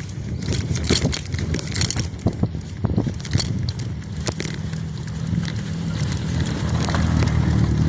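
A motor vehicle's engine running, its steady hum growing louder over the last few seconds, with many sharp clicks and crackles over a low rumble.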